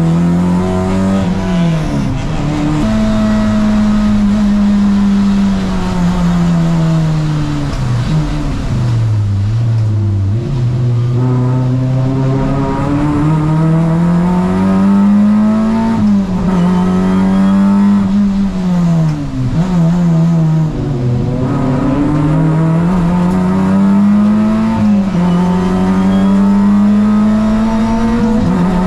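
Toyota Vios race car's 1NZ four-cylinder engine, fitted with a new exhaust, running hard on track. Its pitch climbs through each gear and drops at every upshift, with deeper falls about a third of the way in and again about two-thirds in as it brakes and shifts down.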